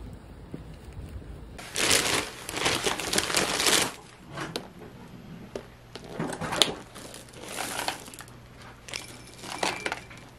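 Thin plastic carrier bag crinkling and rustling in loud bursts as a plastic takeaway tub is unpacked from it. Near the end come a few light clicks of nuts poured from a plastic cup onto the tub.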